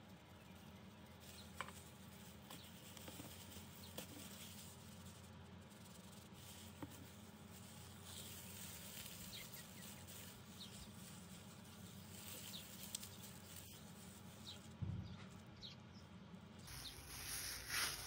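Faint steady hiss with a few soft ticks. Near the end a hand in a thin plastic glove starts kneading raw minced beef, with irregular squishing and glove rustle that is louder than the rest.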